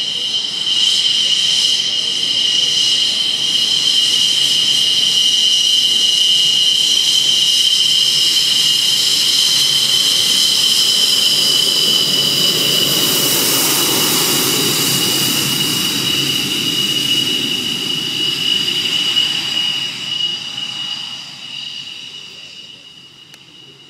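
Twin Klimov RD-33 turbofans of a MiG-29 running with a steady high-pitched whine as the jet rolls along the runway. A louder rush swells as it passes close, about halfway through, then the sound fades as the jet moves away near the end.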